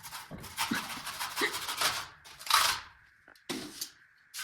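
Glue being scraped off a surface by hand in a run of short, scratchy strokes, with a pause near the end.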